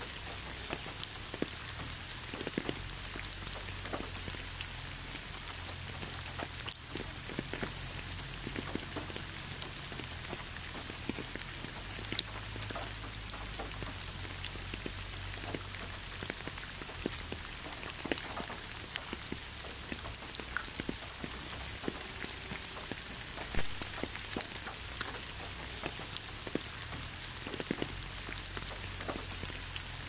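Steady rain falling, an even hiss with many separate drops ticking close by, over a faint low rumble.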